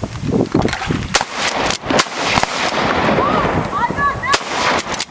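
Volley of shotgun blasts from several duck hunters firing in quick succession, four or five shots close together in the first half and one more near the end.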